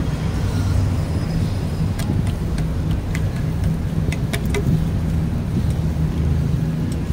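Steady low rumble of a bicycle ride along a concrete city sidewalk, with street traffic going by. A few sharp clicks come about two to four and a half seconds in.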